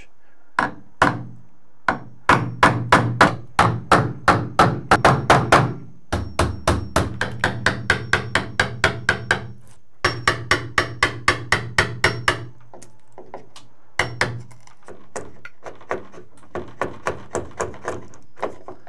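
Hammer striking a wood chisel in quick runs of sharp taps, several a second, as a hinge mortise is cut into a wooden door jamb; the taps become sparser and lighter in the last few seconds.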